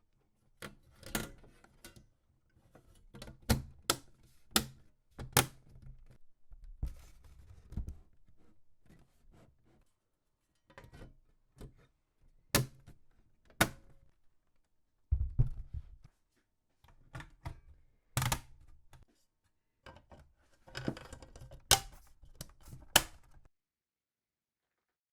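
Hands working on computer hardware in a small PC case: irregular sharp clicks, taps and knocks of plastic and metal parts, in clusters with short pauses, with a heavier thump about fifteen seconds in.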